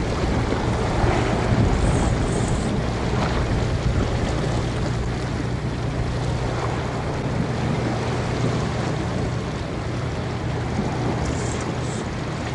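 Sea washing against a rocky shore, with wind buffeting the microphone and a steady low hum underneath.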